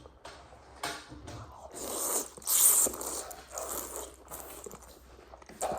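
A person eating thukpa noodle soup: slurping noodles and chewing, with the loudest hissing slurp about two to three seconds in.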